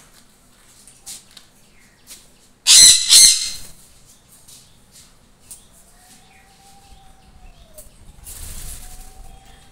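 Sun conures: two loud, harsh screeches back to back about three seconds in, with faint short chirps around them and a flutter of wings near the end.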